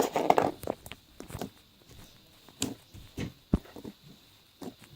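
Pink slime being squished and poked by hand, making irregular sticky clicks and pops.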